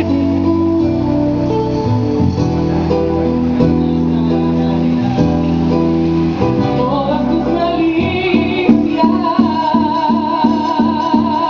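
Music led by guitar, with held chords; about eight seconds in it changes to a steady beat of about three pulses a second, with a wavering melody line over it.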